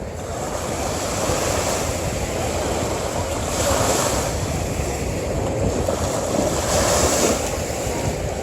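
Ocean surf breaking on a beach in a continuous wash, swelling as waves break about halfway through and again near the end.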